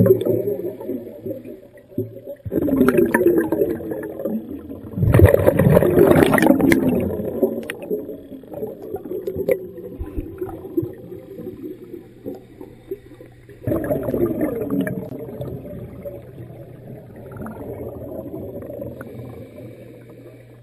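Scuba diver's exhaled breaths bubbling out of a regulator, heard underwater: three bursts of bubbling that each trail off, the third after a longer pause. A low steady hum runs underneath.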